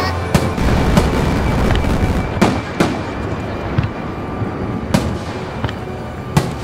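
Fireworks going off: about six sharp bangs at irregular intervals of roughly a second or more, over a continuous noisy rush of launches and bursts.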